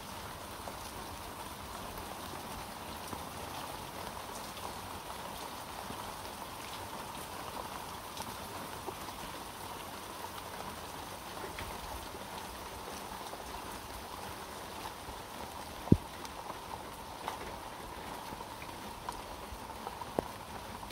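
Steady rain falling, with scattered drops ticking on hard surfaces and one louder, sharp tick about sixteen seconds in.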